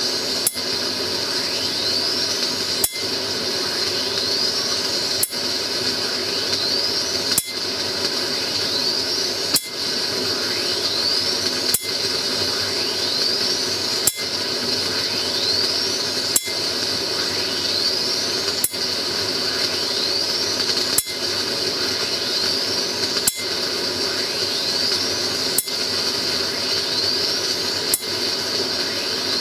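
A repeating high-voltage capacitor discharge: a whine rising in pitch as the capacitor charges, then a sharp crack as it fires, about every 2.3 seconds over a steady hiss and hum.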